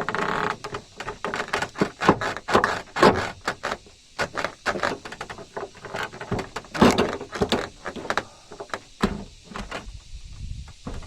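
Irregular knocks and clattering, several a second, the loudest about two, three and seven seconds in.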